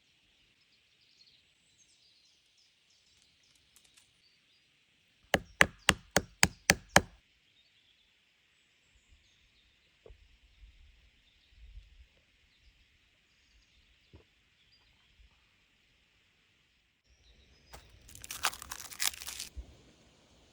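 A quick run of seven sharp knocks, about four a second, then a couple of seconds of dense crackling near the end, over a faint steady high hiss.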